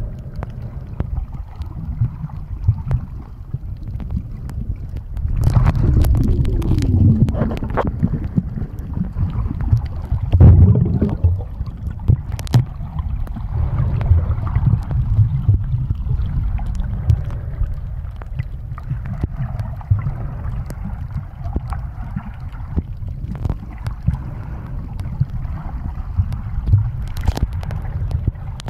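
Muffled underwater sound picked up by a submerged camera: a low, steady rumble of moving water with scattered sharp clicks, swelling louder twice in the first half.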